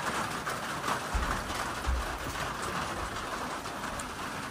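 Steady rain falling, heard from under a trail shelter's metal roof, with many separate drop hits through the hiss. A few low bumps come between one and two seconds in.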